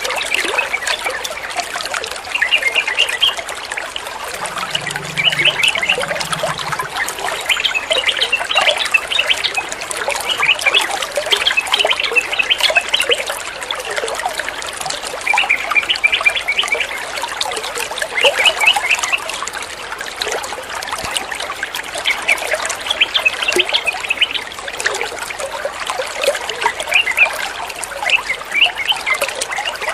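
Water trickling and flowing steadily, with a yellow-vented bulbul (trucukan) giving short bursts of quick chattering notes again and again, every second or two.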